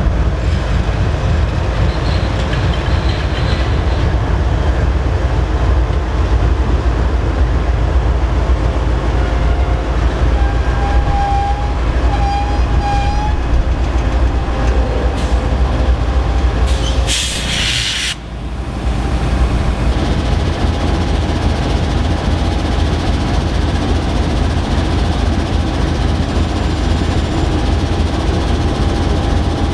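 Norfolk Southern freight train's GE ES44DC and AC44C6M diesel locomotives rolling past close by: a steady, heavy engine rumble with wheel and rail noise. About seventeen seconds in, a loud hiss lasts about a second.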